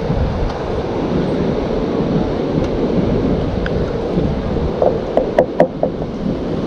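Wind buffeting the microphone over the steady wash of ocean surf below the pier. About five seconds in, a few short clicks and knocks.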